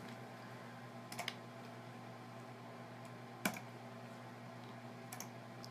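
A few sparse computer input clicks, a pair about a second in and a sharper one about three and a half seconds in, over a steady low electrical hum.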